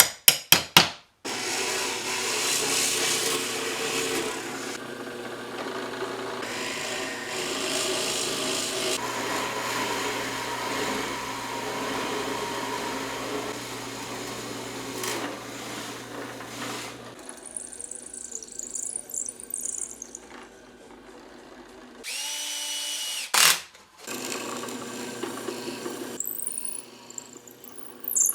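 A few sharp taps near the start, then a power drill boring into wood with a Forstner bit for about fifteen seconds; later the drill motor spins up again briefly and drilling resumes near the end.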